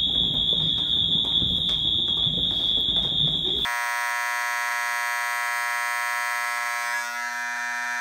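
A Wheelock MT fire alarm horn sounds a steady, continuous high-pitched tone over the shuffle of people walking down stairs. About a third of the way in it cuts abruptly to a Space Age 24 V DC electromechanical fire alarm horn giving a steady, lower, buzzy blare.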